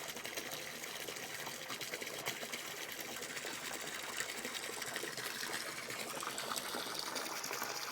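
Backyard waterfall running steadily, an even rush of water.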